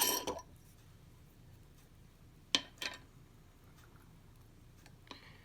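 Two light, sharp clicks about a third of a second apart, from tweezers handling tiny watch parts, over quiet room tone.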